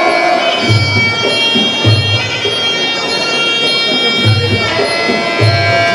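Traditional muay thai fight music: a reedy, oboe-like pipe holds long notes over low drum beats.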